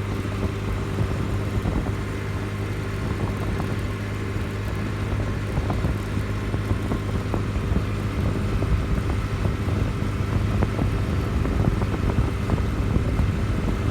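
A vehicle driving along a road: a steady low engine hum with road noise and scattered small knocks and ticks.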